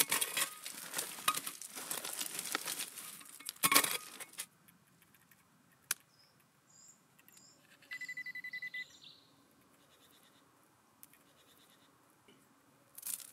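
Hand digger scraping and clinking through stony, gravelly ground for the first four seconds or so. About eight seconds in, a handheld metal-detecting pinpointer gives a rapid pulsing beep for about a second as it picks up the target in the handful of soil.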